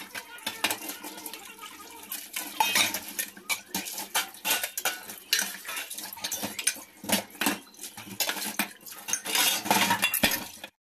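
Stainless steel pots, bowls and a frying pan clanking and clattering against each other and a steel sink as they are washed by hand, with tap water running over them.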